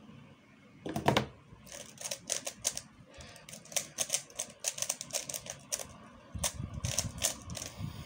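A 3x3 speed cube's plastic layers being turned quickly by hand, making a rapid, irregular run of clicks and clacks. A single louder knock comes about a second in.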